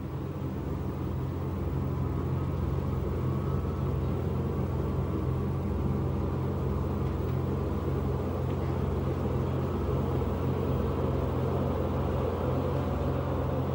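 A steady low rumbling drone that fades in at the start and then holds level.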